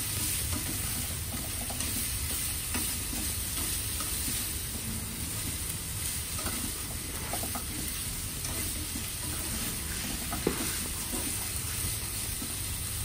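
Sliced pork and asparagus sizzling in a hot frying pan while a slotted spatula stirs and turns them, with faint scrapes and taps of the spatula against the pan, a slightly stronger tap about ten and a half seconds in.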